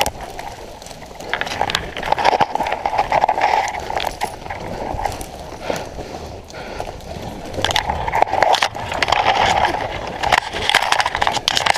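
Dry leaves crunching and brush and twigs snapping and scraping as a person pushes on foot through a thicket, with many quick crackles and rustles.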